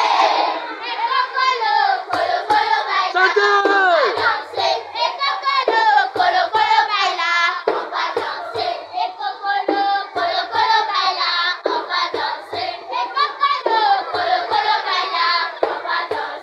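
A group of children singing together in chorus, with hand clapping.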